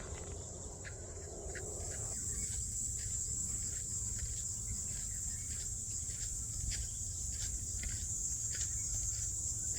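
Steady high-pitched chorus of crickets, with faint regular footsteps of a person walking, about one every 0.7 seconds.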